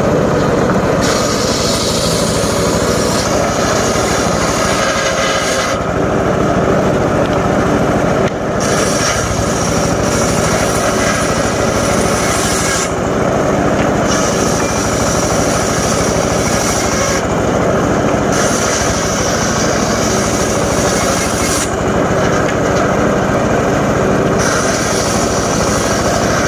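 Homemade engine-driven circular saw running steadily while its blade cuts johar wood. About five cuts of two to four seconds each are separated by short spells of the engine running with the blade free.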